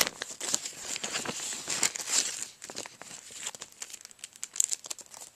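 Crinkly plastic packaging being crumpled and handled, a busy run of dry crackles and rustles that stops near the end.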